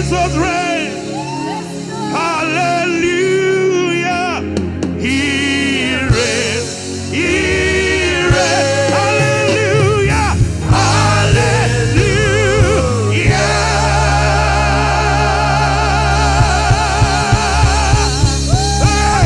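Gospel worship music: singers holding melismatic, wavering lines over sustained bass and keyboard, with drum hits returning near the end.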